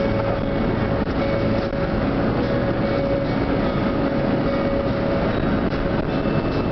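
Steady wind and road noise inside a moving car, with a low drone and a faint steady whine running through it.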